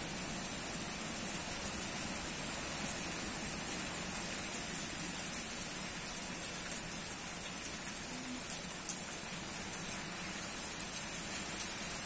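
Hard rain falling steadily on leafy trees: an even hiss with scattered drop ticks.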